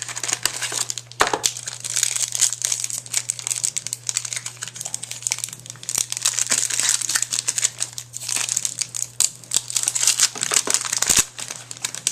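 Trading-card packaging being torn open and crinkled by hand as a box of 2009 Topps Finest baseball cards is unwrapped: a dense, irregular run of crinkling and crackling with sharp tearing snaps.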